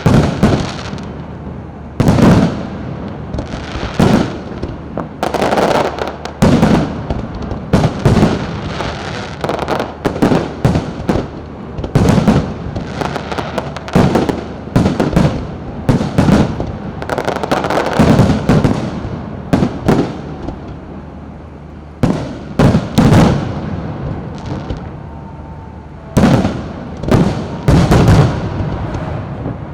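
Aerial fireworks going off one after another: sharp bangs, some in quick clusters, each trailing off in a rumbling echo, with a brief lull a little past halfway.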